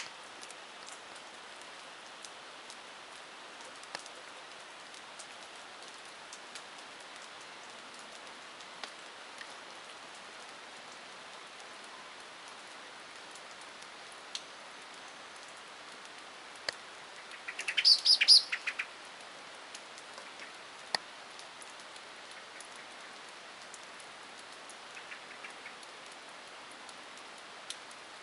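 Steady rain hiss with scattered drop ticks. About two-thirds of the way in, a bird gives a short burst of rapid high chattering notes, the loudest sound, and a fainter brief call follows later.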